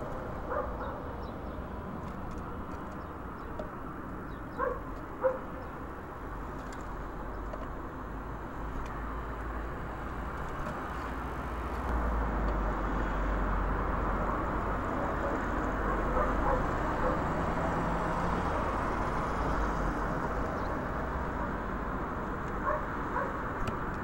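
Steady low rumble of distant road traffic, swelling a little about halfway through, with two short sharp calls about five seconds in.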